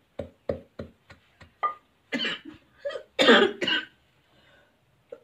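Wooden pestle pounding roasted dried chilies in a wooden mortar, short dull knocks about three a second. The pounding stops after nearly two seconds and a person coughs several times, set off by the pungent roasted chili.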